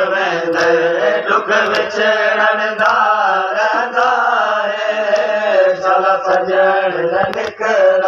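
A group of men chanting a Saraiki noha, a mourning lament, together in a sung recitation, with scattered sharp slaps of hands beating the chest in matam.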